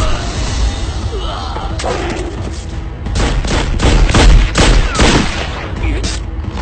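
Action-film battle sound effects: a rapid run of shot-like bangs with heavy booms between about three and five seconds in, over background music.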